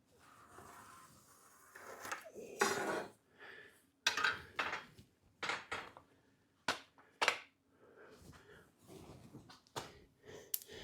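Irregular sharp clacks and knocks of hard objects: melamine shelf boards and tools being handled and knocked together while a shelf is set and tacked into a cabinet side.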